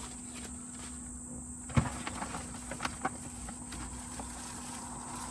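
Sharp knock and a few small clicks from handling a boxed aftermarket car stereo head unit and its parts, the loudest knock about two seconds in, over a steady high-pitched insect drone.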